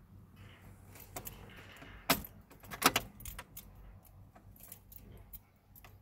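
A car key ring jangling, with a few sharp clicks as the key is turned in a Volkswagen Golf Mk5's ignition; the two loudest come about two and three seconds in. No starter cranking follows: the car is dead at the key, a fault the uploader traces to the left-hand relay under the steering wheel.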